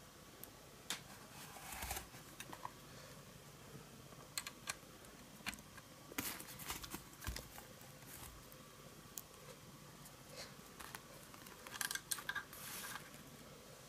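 Faint, irregular clicks, taps and knocks of plastic and metal from a model-train controller unit (cab-style throttle lever with a speedometer box) being handled, lifted and set back down.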